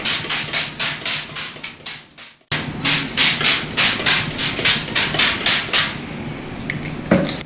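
Trigger spray bottle squirting alcohol onto wet epoxy resin to break up the marble pattern, in quick repeated spritzes about four a second. There is a short dropout a couple of seconds in, and the spraying thins out near the end. A faint low hum runs underneath.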